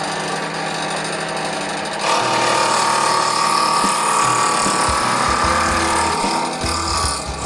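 Power tool running steadily, getting louder from about two seconds in.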